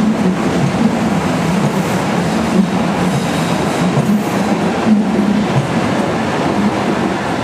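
Stuttgart Stadtbahn DT8 light-rail train pulling into an underground station, a loud steady rumble of motors and wheels on the rails, echoing in the station.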